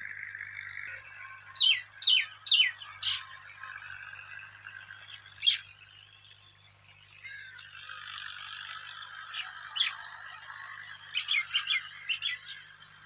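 Birds calling in short, sharp, downward-sliding notes: a quick run of four about two seconds in, single calls later, and a fast cluster near the end, over a steady background hiss.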